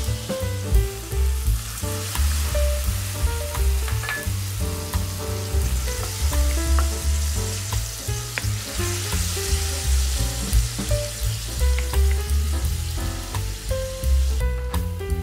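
Food sizzling in a frying pan, heard over background music with a strong, steady bass beat.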